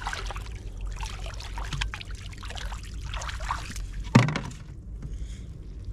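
Water splashing and trickling in irregular small splashes, with one louder sudden impact about four seconds in.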